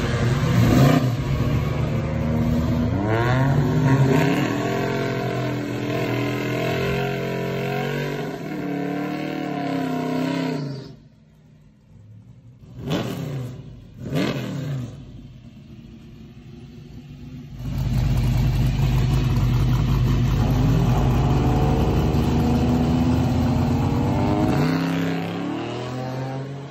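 Buick Gran Sport drag car's V8 running loud and revving, with rising and falling sweeps of engine speed. About 11 s in it drops back, two sharp throttle blips follow, and from about 18 s it holds a long loud stretch at high revs before easing off near the end.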